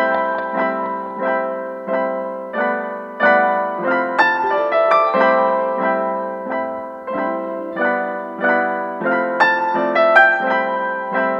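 Piano background music, notes and chords struck in a steady, even rhythm.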